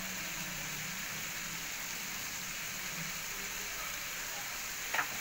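Masala paste and ground spices frying in oil in a pan: a steady sizzle, with a short click near the end.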